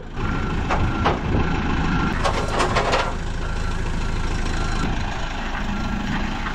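A truck engine running steadily. Over it come a few sharp metal clanks and, about two to three seconds in, a burst of rattling as the stripped chassis shifts on the steel bed.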